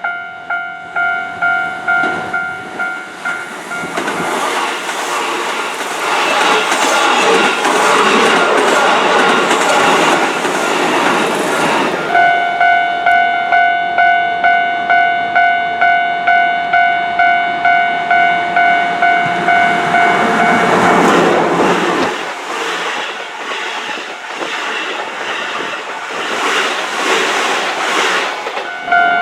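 Japanese level-crossing warning bell ringing, a two-tone ding repeated about twice a second, while two Keihan electric trains pass in turn with clattering wheels. The first train passes from about four seconds in to twelve seconds in, the second from about twenty-one to twenty-nine seconds in, each drowning the bell while it passes.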